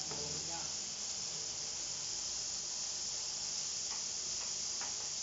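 Pork and garlic sizzling in hot oil in a wok, a steady high hiss, with a few faint clicks near the end.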